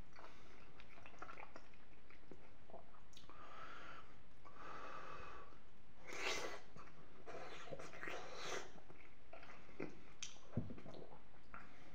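Close-up mouth sounds of a man chewing creamy penne with peas, with heavy breathing through the nose. Near the end a fork clicks once against the ceramic bowl as he scoops more pasta.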